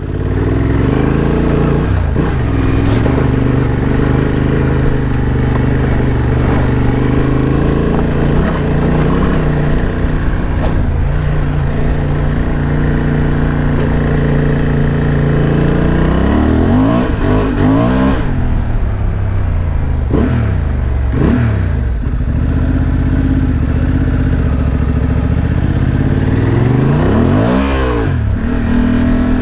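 Honda XL750 Transalp's 755 cc parallel-twin engine running steadily through most of it, then revving up and down several times in the second half as the throttle is opened and closed.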